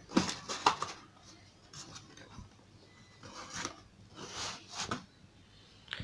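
Cardboard box being opened by hand, its flap and lid lifted off: a cluster of sharp scrapes and knocks in the first second, then more scuffs and taps about three and a half to five seconds in.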